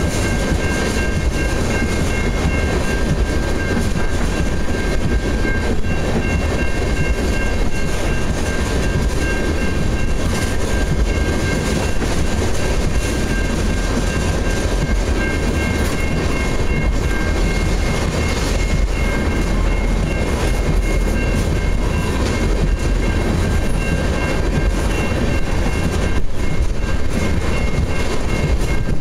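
Freight train of ethanol tank cars rolling past at speed: a steady, loud rumble of wheels on rail, with faint high-pitched ringing tones held through it.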